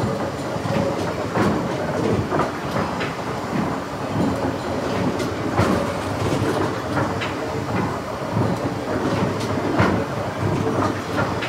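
Triple-expansion steam pumping engine running, a steady mechanical clatter with repeated knocks from its crossheads and motion work.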